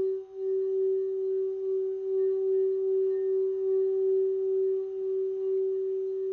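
Singing bowl played so that it sings: one steady, sustained ringing tone with fainter overtones, wavering slowly in loudness, with a brief dip just after the start.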